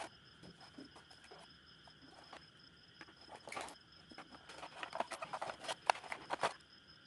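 Cardboard box and foam packaging being handled by hand: scattered scrapes, taps and rustles, thickening into a quick run of clicks and scrapes about five to six and a half seconds in as parts are pulled from a foam insert. A faint steady high whine sits underneath.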